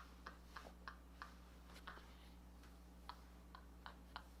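Near silence broken by faint, irregular clicks of computer keyboard keys.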